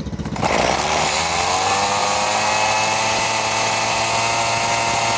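Homelite two-stroke chainsaw engine revved up from a low run about half a second in, its pitch climbing and then holding steady at high speed.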